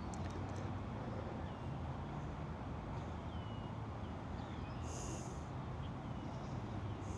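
Steady road-traffic noise, with a small bird chirping faintly several times.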